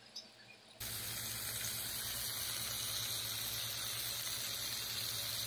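Pork rib steaks sizzling in hot grease on a flat-top griddle as they stand on end to sear their edges: a steady hiss that starts suddenly about a second in.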